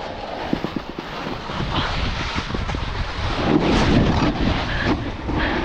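Wind rushing over the action-camera microphone and a snowboard scraping over snow, growing louder about three and a half seconds in.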